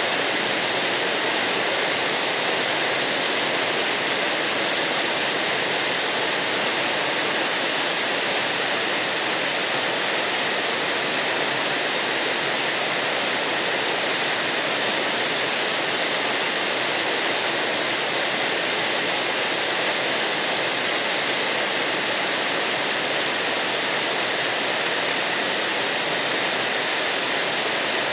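Waterfall in a granite mountain gorge pouring steadily: a constant, even rush of falling water.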